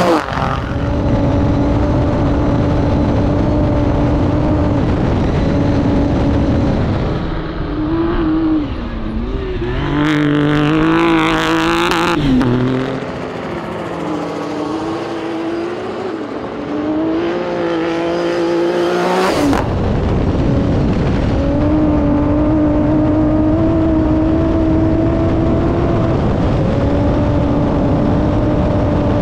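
Honda Ridgeline trophy truck's HRC twin-turbo V6 running hard at speed, holding a steady high note, with the pitch rising and falling in the middle as the throttle changes and a brief loud rush about ten seconds in.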